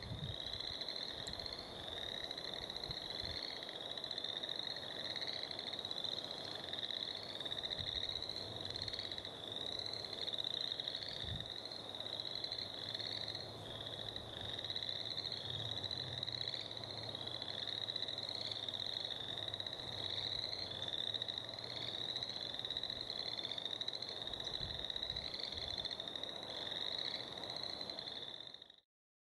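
A dense chorus of frogs calling from a spring pond: a steady, high-pitched mass of rapid overlapping calls that never lets up, stopping abruptly near the end.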